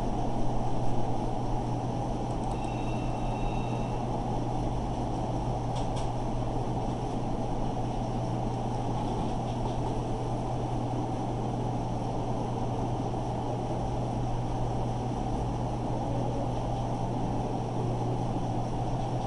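Steady low hum with hiss underneath, the constant background noise of the recording setup, with a faint click about six seconds in.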